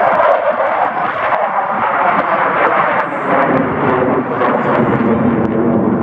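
Jet roar of a USAF Thunderbirds F-16 fighter passing overhead during an air show demonstration, a loud steady rush that deepens in pitch in the second half.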